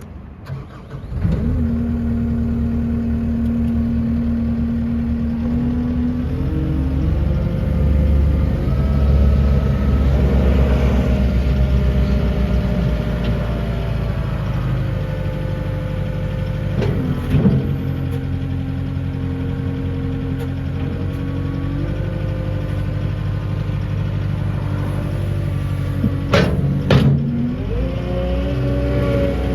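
Cat 262D3 skid steer's diesel engine starting about a second in and then running, its speed rising for a few seconds before settling back. Sharp knocks come once midway and twice near the end.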